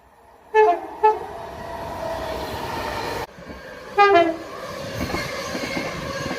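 Train horn sounded in two short blasts, each sliding down to a lower note at its end, followed by the steady rumble of the train running past. After a sudden cut, another train gives a short horn blast that drops from a higher to a lower note, and its rumble carries on.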